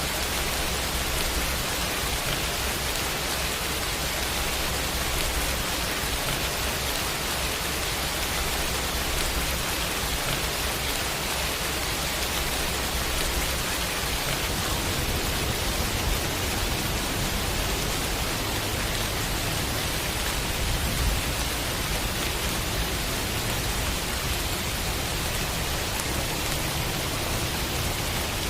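Heavy rain falling in a steady, even hiss, with a low rumble underneath that grows stronger about halfway through.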